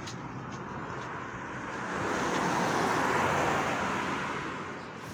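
A car passing by on the road: its tyre and engine noise swells up, is loudest about three seconds in, and fades away.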